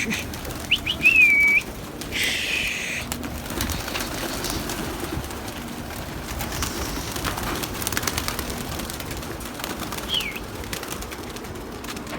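Domestic pigeons cooing, with a burst of wing-flapping about two seconds in and a couple of short, high chirps.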